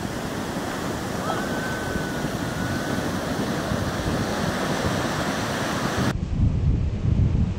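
Ocean surf washing onto a sandy beach, a steady hiss of breaking waves. About six seconds in, the sound turns duller, with a low rumble of wind buffeting the microphone.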